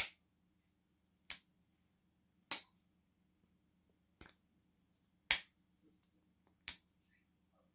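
Pena slipjoint pocketknife's backspring snapping the blade open and shut: a series of crisp single clicks, one about every second and a quarter, one of them much fainter than the rest.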